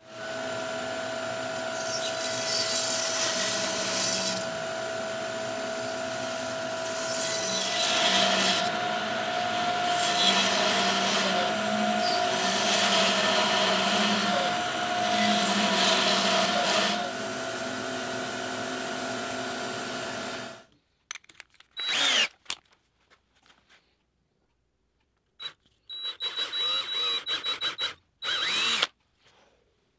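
Jet bandsaw running with a steady whine and cutting through a monkey puzzle log, louder and noisier while the blade is in the wood, then cutting off suddenly about two-thirds of the way through. After that, a DeWalt cordless drill bores into the end grain of the block in several short bursts.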